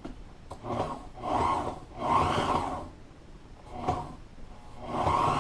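Walking-foot sewing machine stitching a double seam in boat-seat vinyl in several short runs of about a second each, stopping and starting as the fabric is guided.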